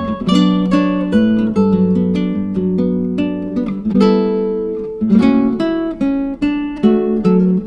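Background music: acoustic guitar picking and strumming chords, with one chord left to ring out about halfway through.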